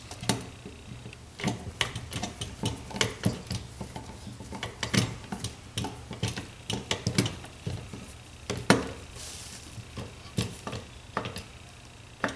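Screwdriver tightening the fillister-head screws, with lock washers, that hold the upper and lower halves of a Tillotson Model X carburetor together: irregular small metallic clicks and scrapes.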